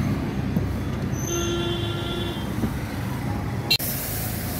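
Low rumble of street traffic, with a vehicle horn sounding for about a second. Then a sudden click, and the steady hiss of a water jet washing down a van.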